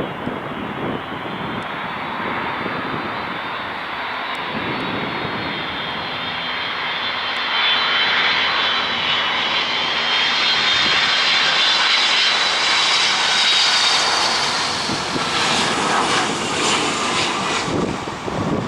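Boeing 757-200 airliner's jet engines, a steady roar with a high whine that grows louder partway through, peaks, then begins to fade as the aircraft passes.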